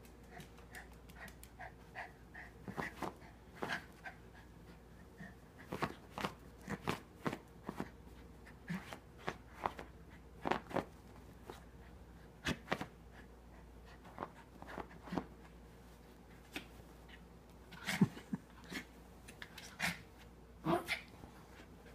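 Small dog scratching, pawing and digging at his padded fabric bed while rooting around with a tennis ball: irregular quick scratches and thumps, the loudest about eighteen seconds in.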